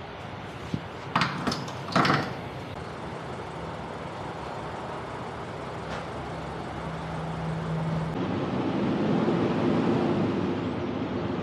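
Semi-truck running, heard from inside the cab: a steady engine and road drone with a few sharp knocks about a second and two seconds in. About eight seconds in the engine sound changes and grows louder.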